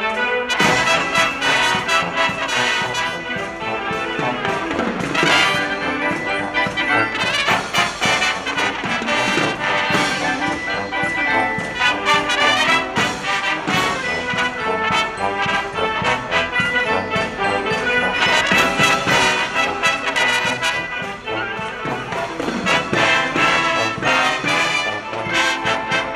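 A high-school marching band playing live: trumpets, trombones, saxophones, flutes and sousaphones together over a steady beat.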